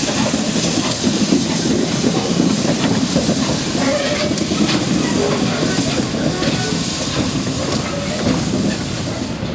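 Norfolk & Western 611, a Class J 4-8-4 steam locomotive, passing at walking pace with a steady hiss of steam and scattered knocks and clanks from its running gear and cars on the rails.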